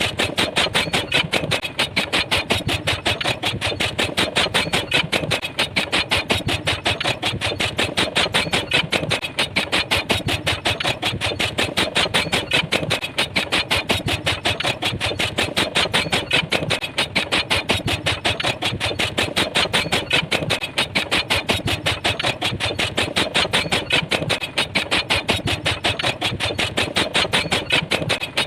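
Pile driver hammering in a steady, unbroken rhythm, about three blows a second.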